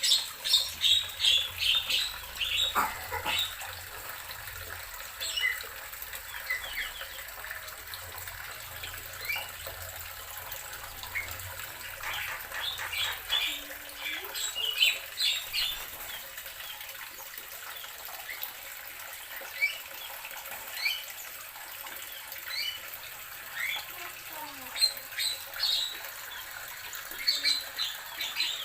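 Birds chirping in quick runs of short, high chirps, loudest at the start, again around the middle and near the end, over a steady hiss.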